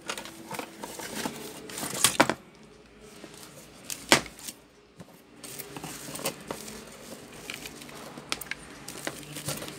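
Handling noise as a laptop charger and its cable are picked up and plugged in: rustling and a series of clicks and knocks, the loudest a single sharp click about four seconds in.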